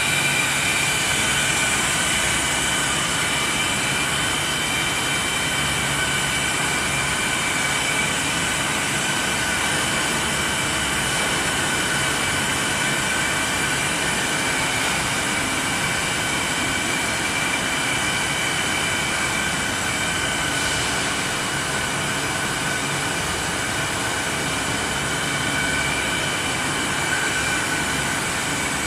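Three-layer, two-screw bubble wrap film machine running: a steady mechanical din with several high-pitched tones held steady over it.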